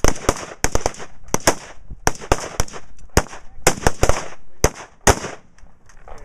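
Rapid, irregular rifle fire from several shooters on a firing line, a .308 semi-automatic among them: about three sharp shots a second, some overlapping, each trailing off in a short echo, with a brief lull near the end.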